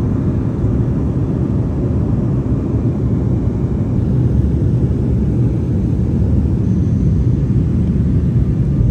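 Jet airliner cabin noise in flight: engines and rushing air making a steady low drone with a hum, growing slightly louder in the second half, as the plane descends.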